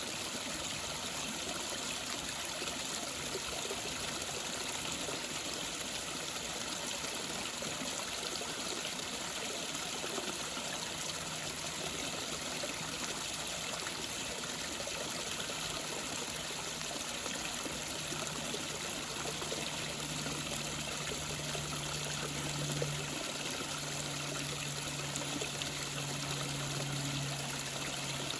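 Small creek waterfall: water falling and splashing steadily. A faint low hum comes in about halfway through and grows a little louder.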